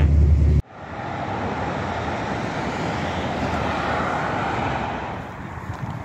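Low steady rumble of a train carriage that cuts off abruptly just over half a second in, giving way to a steady outdoor rush of wind noise.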